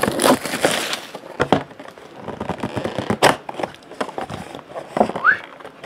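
A cardboard trading-card box being opened by hand: packaging and paper rustling and crinkling, with several sharp knocks as it is handled. A short rising whistle comes near the end.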